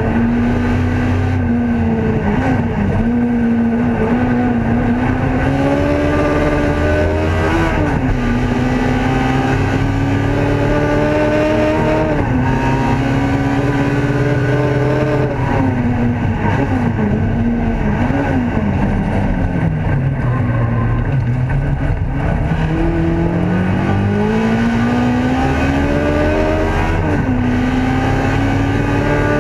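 Ford Escort race car's engine heard from inside the cockpit under hard acceleration. Its note climbs through each gear and drops sharply at quick upshifts, falls away with downshifts about two-thirds through as the car slows, then climbs again through the gears.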